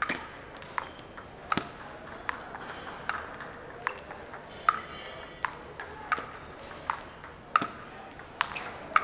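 A table tennis ball in a long rally, making about a dozen sharp clicks at an even pace, a little more than one a second, as it strikes the paddles and bounces on the table in turn.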